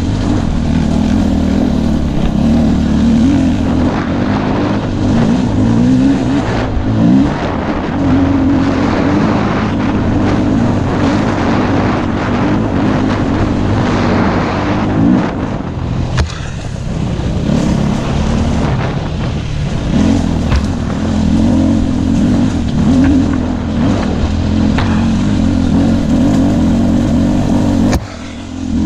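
KTM 250 EXC-F's single-cylinder four-stroke engine running under constantly changing throttle, its pitch rising and falling as the bike is ridden over rough gravel, with stones knocking under the tyres. The engine briefly drops off near the end.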